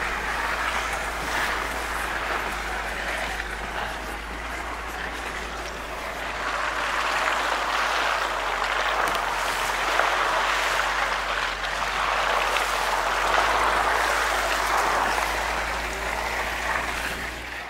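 An SUV driving slowly over a rough, grassy field: a steady low engine hum under a rushing, crackly hiss of tyres and dry grass brushing beneath the car, rising and falling in level.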